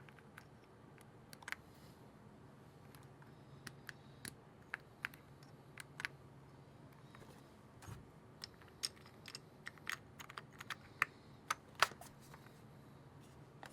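Keys of an Akko MOD007B HE PC keyboard being pressed one by one in a test. Irregular single clacks, sparse at first and coming more often in the second half.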